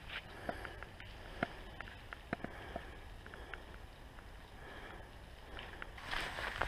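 Low wind rumble on an action camera's microphone, with scattered faint clicks. About six seconds in, a louder rush of noise starts as the camera moves off along the trail.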